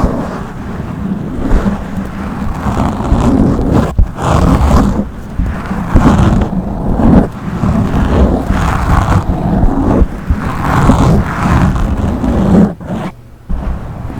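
Fingers scratching and rubbing directly on a microphone: loud, scratchy, rumbling noise that comes in irregular swells and drops away briefly near the end.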